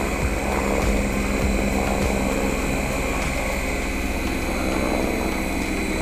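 Toy RC helicopter's small electric motors and twin coaxial rotors buzzing steadily as it hovers close by, with a steady high whine.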